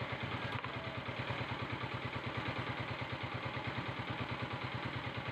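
An engine idling steadily with a rapid, even pulse.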